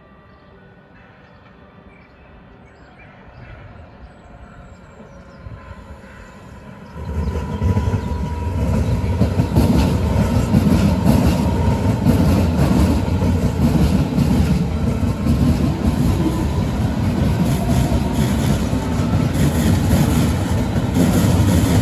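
Berlin S-Bahn electric train approaching, growing louder over several seconds, then running close by loudly from about seven seconds in.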